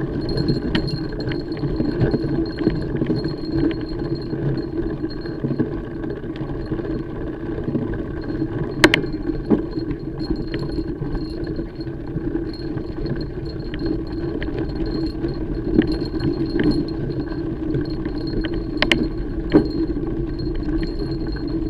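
Mountain bike being ridden over trail: a steady rumble of tyres on the ground with the chain and bike parts rattling and clinking, and now and then a sharp knock over a bump, two of them standing out about ten seconds apart.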